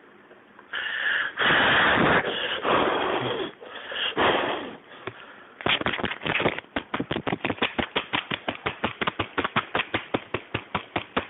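Birthday-cake candles being blown out in several long, hard puffs of breath, followed by a fast, even run of hand claps, about seven a second.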